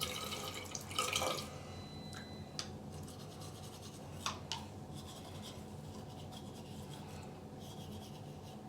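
Teeth being brushed with a toothbrush: soft, scratchy scrubbing, louder in the first second or so, with two sharp clicks a few seconds in.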